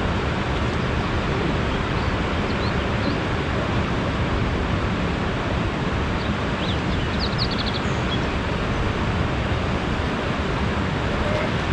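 Steady wind rushing over the microphone outdoors, with a few faint, high chirps near the middle.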